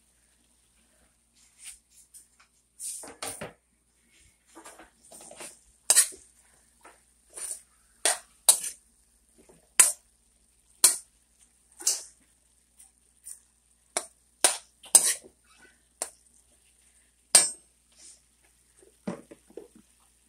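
Large metal spoon clinking and scraping against a metal wok while stirring ground beef and chopped onions: sharp, irregular knocks about one a second, some much louder than others.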